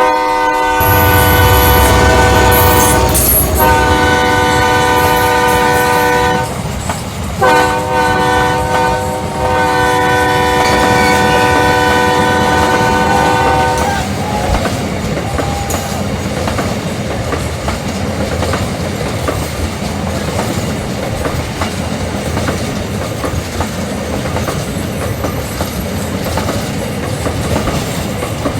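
Train horn sounding a multi-note chord in three blasts, the third one long, then the train rumbling past with wheels clacking over the rail joints.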